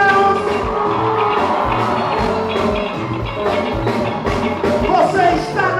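Instrumental break of a gospel band: a drum kit keeps a fast, steady beat under sustained chords from the melodic instruments, with no singing.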